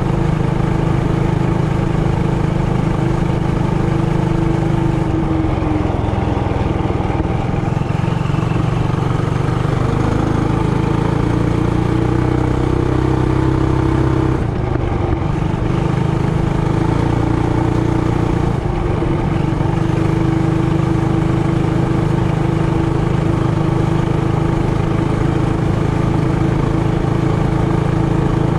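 Trailmaster Hurricane 200X minibike's single-cylinder engine running under way. It holds a steady note, with the engine speed shifting a few times and dipping briefly about halfway through.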